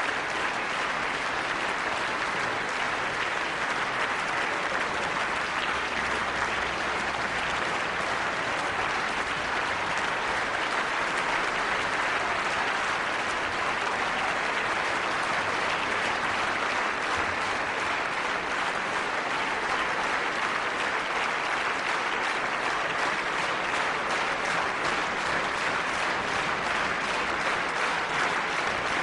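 Concert audience applauding steadily and evenly at the end of an orchestral performance.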